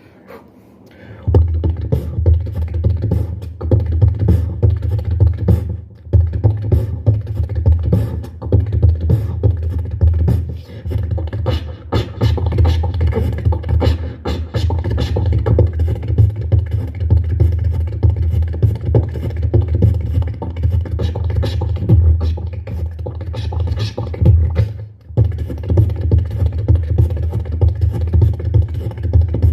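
Beatboxing built on rapid mouth clicks over a steady low hum, starting about a second in, with a few brief pauses along the way.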